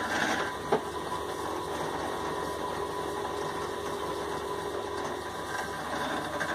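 Power tool motor running steadily while a 2 mm drill bit bores a small relief hole into the bottom of a ferro rod handle's socket, with a sharp click about three-quarters of a second in.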